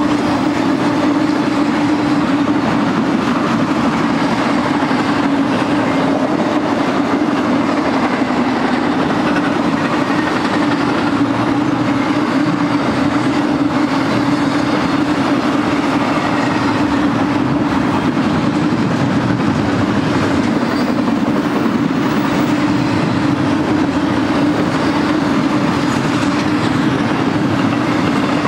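Intermodal freight train's trailer and double-stack container cars rolling past at track side, a steady, loud noise of steel wheels on rail that does not let up.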